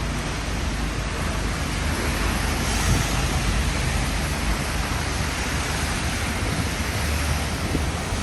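Heavy rain falling in a steady hiss, with street traffic running underneath.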